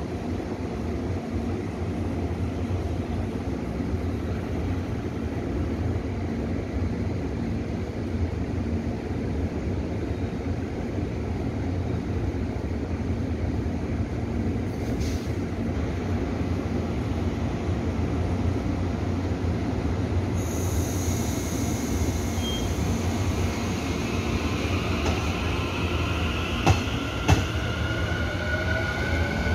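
Taiwan Railway electric multiple-unit train humming steadily at a station. About two-thirds of the way in, a whine joins it and climbs in pitch, with a few sharp clicks near the end, as an electric train starts to move.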